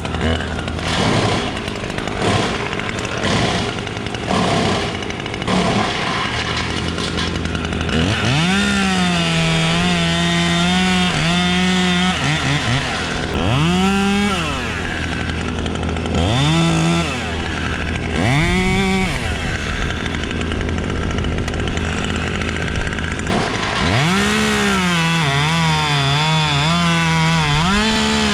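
Chainsaw idling with some knocks at first, then revving up and cutting wood. There is a long cut about eight seconds in, a few short revs, and another long cut near the end.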